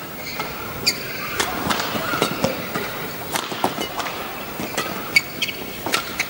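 Badminton rally: sharp racket strikes on the shuttlecock at irregular intervals, with court shoes squeaking in short chirps on the court mat as the players lunge and push off.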